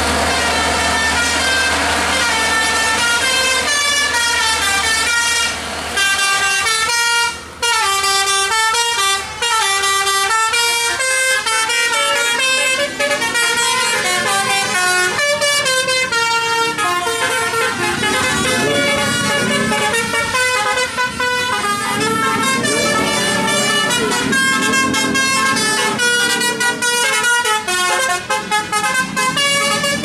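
A bus's 'basuri' telolet musical air horn playing a long melody of stepped notes, loud and continuous. Engine noise with rising and falling pitch grows underneath it in the second half.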